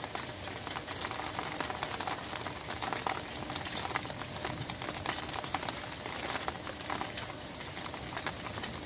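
Rain falling on an umbrella's fabric canopy: a steady hiss of rain with a dense, irregular scatter of sharp drop taps.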